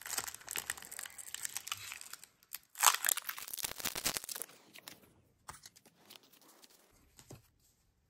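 Foil wrapper of a Pokémon card booster pack crinkling and being torn open, with the loudest rip about three seconds in and more crinkling just after. A few faint ticks follow near the end.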